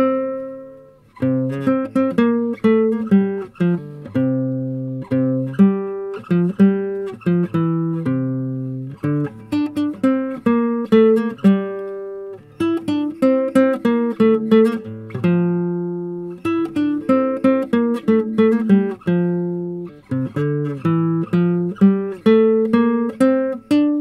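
Instrumental background music: a guitar plucking a melody note by note, each note ringing and fading.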